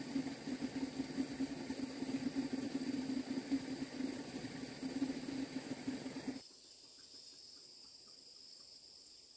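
A steady, fluttering low drone like a running engine, which cuts off abruptly about six seconds in. It leaves a quiet background of insects trilling steadily.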